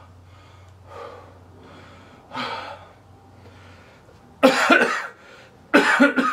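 A man breathing heavily, then coughing hard twice, once about four and a half seconds in and again near the end.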